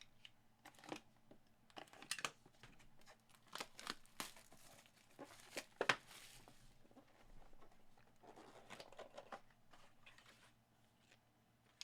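Faint tearing and crinkling of packaging as a sealed trading-card box is opened, with scattered light clicks and rustles.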